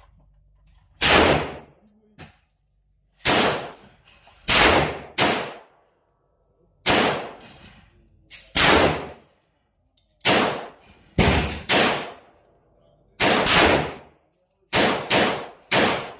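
Glock 19 9 mm pistol firing about fourteen shots at an uneven pace: single shots a second or two apart mixed with quick pairs, each a sharp report with a short ringing tail. A small click comes about two seconds in.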